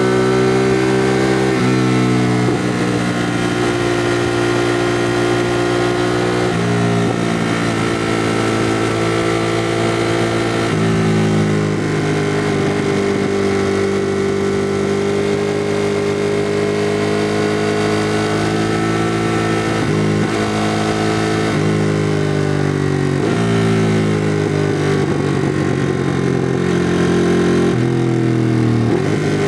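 2016 Ducati Monster 821's liquid-cooled L-twin engine with its stock exhaust, under way and pulling through the gears. Its pitch climbs and then drops sharply several times, with a long slow climb in the middle and a falling stretch a little after it.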